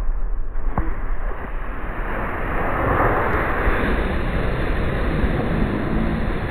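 Wind buffeting the microphone of a camera moving quickly downhill, mixed with the hiss and scrape of snowboards sliding over snow. A brief knock comes about a second in.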